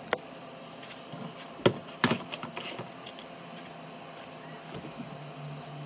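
Sharp knocks and clatter of tools and hands against the wooden sink cabinet, loudest around two seconds in, with a short low hum near the end.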